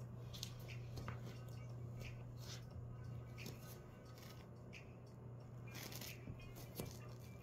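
Faint crisp rustling and clinking of a sequined fabric jumpsuit as the wearer moves, in short irregular bursts, over a low steady hum.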